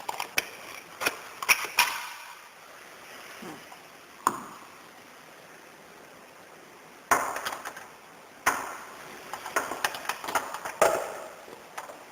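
Irregular clicks and knocks of hard parts being handled and fitted during disassembly, in scattered clusters with quieter pauses between.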